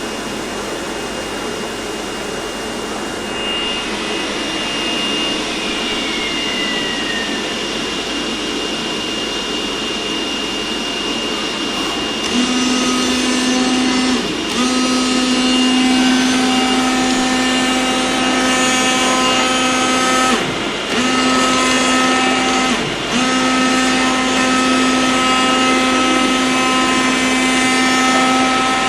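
Oscillating-knife CNC cutter running: a steady rushing machine noise, joined about twelve seconds in by a steady buzzing hum that breaks off briefly three times.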